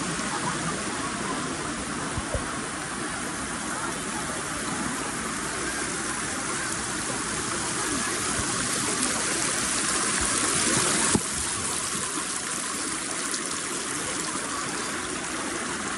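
Shallow river water rushing and splashing over rocks, heard close up with the microphone just above the surface. A steady rush that dips slightly in level about eleven seconds in.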